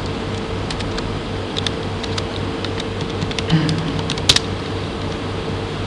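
Scattered keystrokes on a computer keyboard as a password is typed, with a sharper click about four seconds in, over a steady electrical hum.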